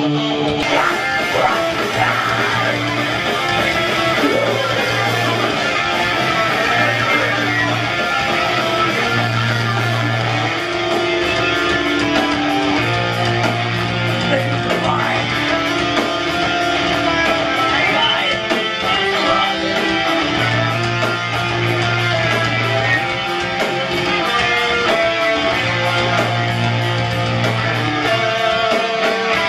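Live metalcore band playing: distorted electric guitars, bass and drums, with long held low notes coming back every few seconds under steady cymbal hits.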